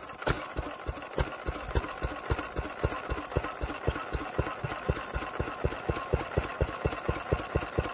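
Vintage single-cylinder stationary engine running steadily at low speed, with evenly spaced firing beats about five a second.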